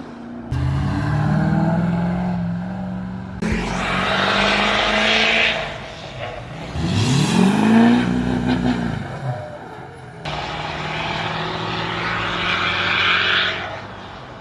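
Several short clips of vehicles accelerating hard past the roadside, spliced together with abrupt cuts between them. Each has a loud engine note and exhaust noise. About halfway through, one engine's pitch rises and then falls as it passes.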